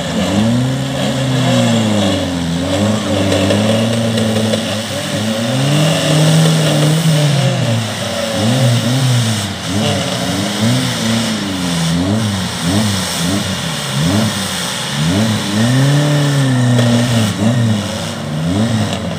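Off-road 4x4 engine revving hard over and over, its pitch swinging up and down repeatedly as the vehicle strains to drive through deep mud.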